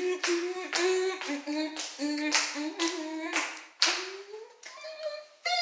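Singing in held, sliding notes over steady rhythmic hand claps.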